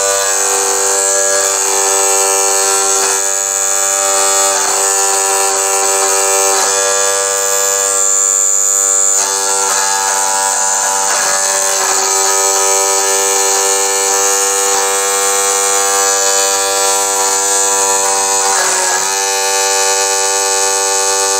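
Small high-speed electric motor running steadily with a whine made of several steady tones, driving a small end-mill cutter set against a brass nut in a mini lathe. The whine weakens briefly about eight seconds in and again near the end.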